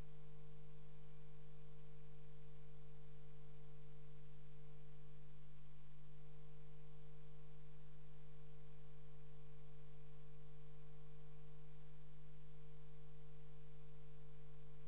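Steady electrical hum at a fixed low pitch, with a faint high whine above it and no change.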